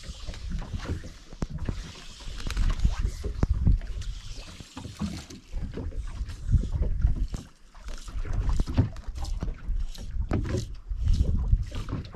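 Water slapping and lapping against the hull of a small boat drifting on open sea, with wind gusting on the microphone in irregular low rumbles.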